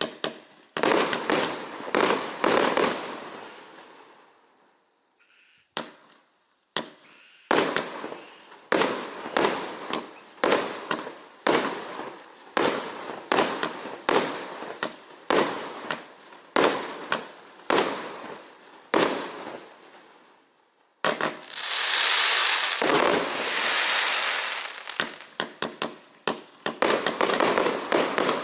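Klasek C1923XMF/C 192-shot compound fireworks cake firing. A quick run of shots is followed by a short lull, then a steady string of launches at about three every two seconds. About two thirds of the way through comes a dense, unbroken rush of noise lasting about four seconds, and rapid shots follow near the end.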